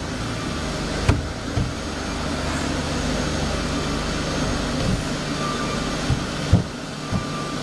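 Woodworking panel machinery running: a steady mechanical hum with a few sharp knocks, two about a second in and two more around six seconds in.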